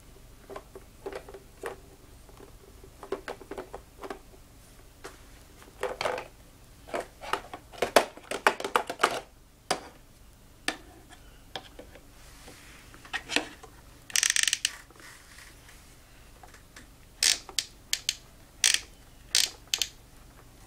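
Plastic parts of a toy workbench clicking and knocking as they are handled, in irregular taps and clatters, with a short rattling burst about two-thirds of the way through.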